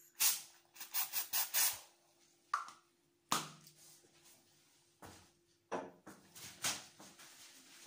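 Aerosol can of blue wound spray hissing in short bursts: a quick run of about five in the first two seconds, then single bursts a little after three seconds, near six seconds and again shortly after.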